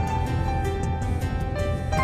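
Instrumental background music, with held melody notes that change about every half second over a steady beat.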